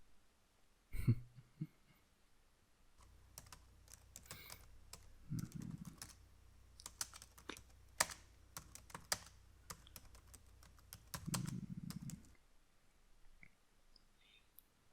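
Typing on a computer keyboard: a run of soft, irregular key clicks for about nine seconds, starting about three seconds in. A single thump comes about a second in.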